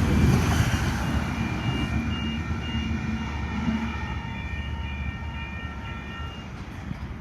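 Oscar (H-set) electric multiple unit running past and moving away: its rumble fades steadily, with thin high tones coming and going until about two-thirds of the way through.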